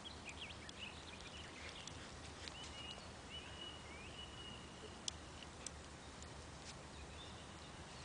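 Faint open-air background with a few short high bird chirps, a thin steady high note held for about two seconds in the middle, and a couple of light clicks.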